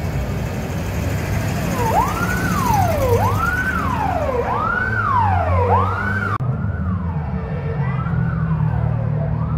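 A siren wailing, sweeping quickly up and more slowly down about once a second, starting about two seconds in, over the low steady running of car engines.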